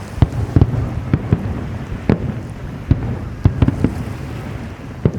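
Aerial fireworks bursting: a rapid, irregular string of bangs over a continuous low rumble of echoing explosions.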